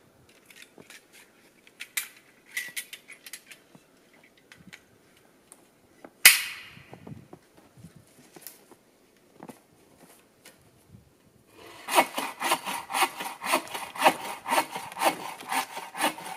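Bow saw cutting a log on a wooden sawbuck, in rapid, even back-and-forth strokes that begin about twelve seconds in. Before that there are scattered scrapes and clicks of wood and tools being handled, and one sharp, loud knock about six seconds in.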